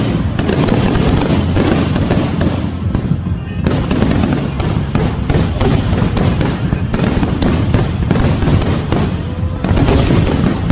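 Fireworks finale: a continuous barrage of aerial shells bursting over one another with crackling stars, loud throughout, thinning briefly about three seconds in.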